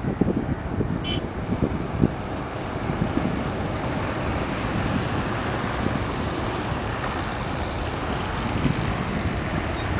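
Departing airliner climbing away after takeoff: a steady, distant engine roar that slowly builds, with wind buffeting the microphone near the start.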